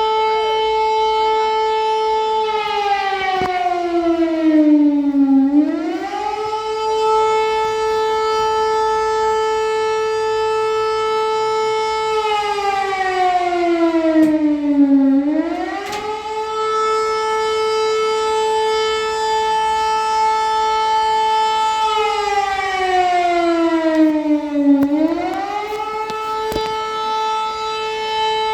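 Civil defense siren sounding a missile-danger alert. It holds a steady tone, slides down in pitch over about three seconds, then swings quickly back up, three times about ten seconds apart.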